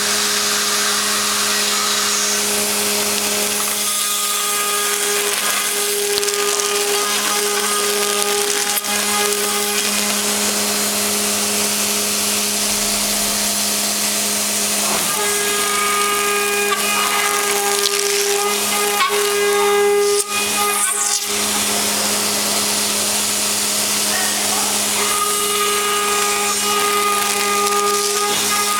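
CNC router spindle milling HDPE plastic: a steady whine over a continuous hissing cutting noise, with a brief dip about twenty seconds in.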